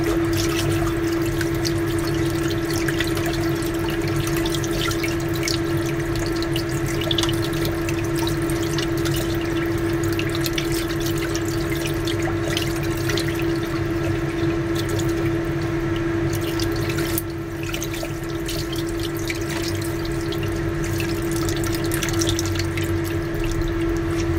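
Water running and splashing in a stainless steel sink bowl as a salted duck leg is rinsed and rubbed clean by hand. A steady hum runs underneath.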